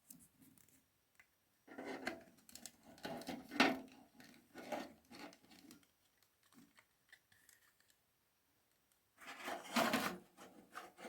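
Hands handling a SATA cable and SSD inside a PC: short clicks, taps and rubbing in two bursts, the second starting near the end.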